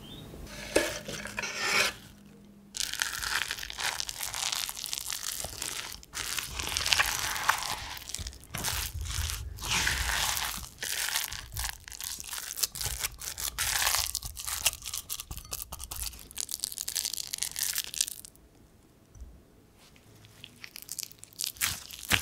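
A silicone spatula stirring and scraping a thick, wet chickpea and vegetable patty mixture in a glass bowl, a busy run of wet, crackly mixing sounds. It stops about eighteen seconds in, and near the end gloved hands start pressing the mixture into a patty.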